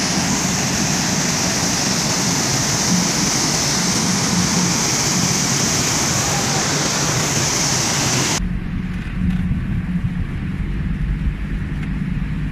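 Loud, steady rush of the Rhine Falls' plunging water and spray close by. About eight seconds in it cuts off abruptly to the low, steady drone of the tour boat's engine.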